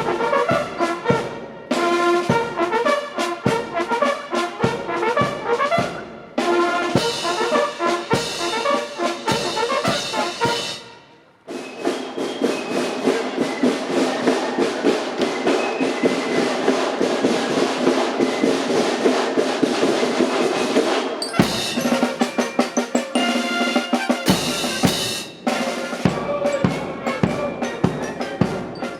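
Military marching band playing a march: brass with a steady drum beat. The music breaks off abruptly and restarts several times.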